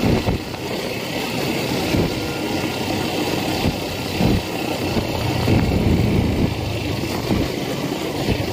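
Yamaha FZ v3 motorcycle's single-cylinder four-stroke engine running at low speed while riding over a bumpy dirt path, with a few thumps from the rough ground. The engine hum grows a little stronger about halfway through.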